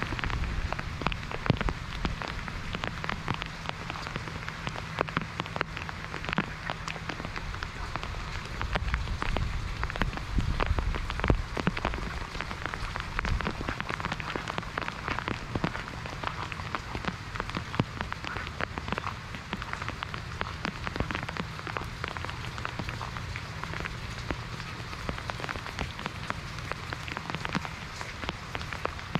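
Steady monsoon rain falling: an even hiss of rain with many close, sharp drop taps scattered through it.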